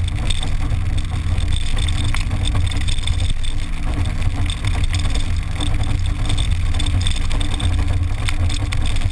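A rally car driving at speed over a dirt and grass stage, heard from a camera mounted on the outside of the car: engine running, with a heavy, uneven low rumble of wind and road noise on the microphone.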